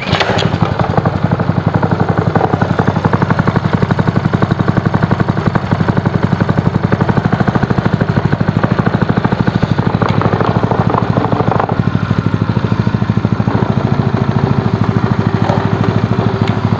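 New Lifan KP230 8 hp single-cylinder four-stroke engine catching and running steadily on its first run, quiet and even, its idle just raised a little with the idle screw.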